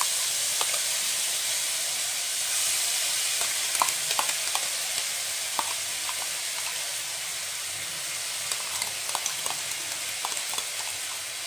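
Wet paste of mustard seed, ginger and green chilli sizzling hard in hot mustard oil in a kadai, its water boiling off just after going into the oil. A loud, steady hiss that slowly eases, dotted with small pops and crackles.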